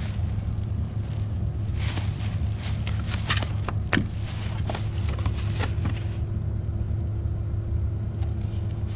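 Gloved hands rummaging through bin bags and handling cardboard books and a card: scattered rustles and clicks over a steady low rumble.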